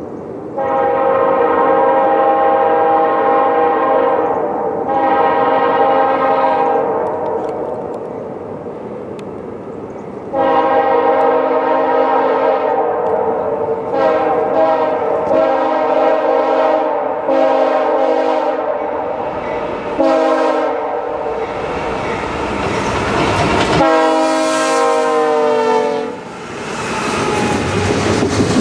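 Nathan K3LL three-chime air horn on a CN C44-9W freight locomotive, sounded in a string of blasts: two long ones, another long one, then a run of short blasts. Around two-thirds of the way through, the train's rolling noise takes over as it passes, with one more long horn blast, and near the end the cars clatter over the rail joints.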